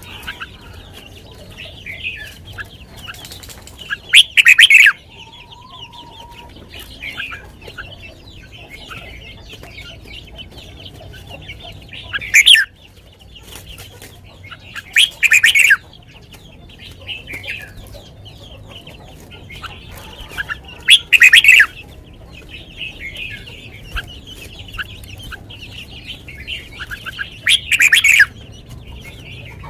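Caged red-whiskered bulbul singing: five loud, short song phrases several seconds apart over steady quieter chirping.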